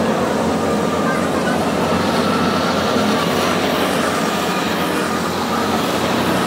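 Go-karts running around the track with their engines going, a steady mechanical drone, with several karts passing close by near the end.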